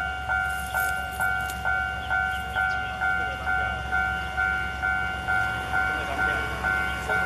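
Railway level-crossing warning bell ringing steadily, about two strikes a second, each strike fading before the next: the signal that a train is approaching.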